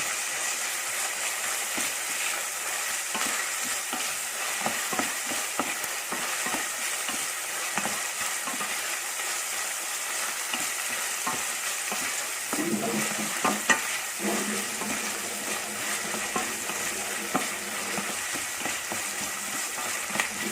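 Salmon cubes, onion and bell peppers sizzling in a frying pan while being stirred, with a utensil scraping and tapping the pan. One louder knock comes about two-thirds of the way through.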